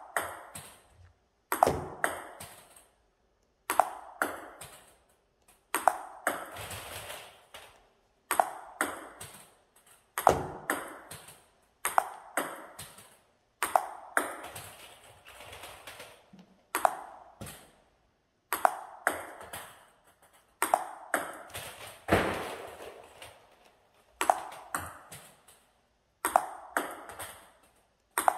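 Table-tennis ball clicking against the paddle and bouncing on the table, in a quick run of sharp clicks about every two seconds as the same stroke is drilled over and over.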